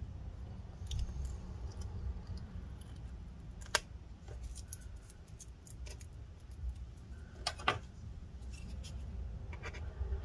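Hand tool scraping and clicking against the laptop's case while battery cells and adhesive are pried and peeled up. Scattered light scratches include a couple of sharper clicks, over a low steady hum.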